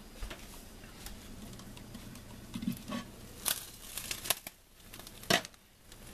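A pot lid being lifted off a pot of simmering rice and handled: a few sharp clinks and knocks, the loudest about three and a half, four and five seconds in.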